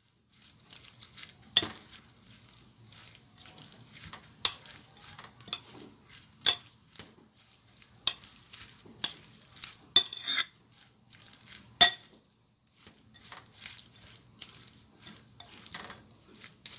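Metal spoon stirring oil-dressed shredded white radish pickle in a glass bowl: soft, wet rustling of the vegetables, broken by several sharp clinks of the spoon against the glass.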